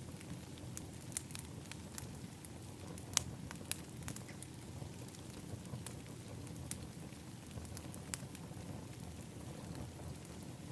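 Wood fire in an outdoor fire pit crackling, with irregular sharp pops, the loudest about three seconds in, over a low steady rumble.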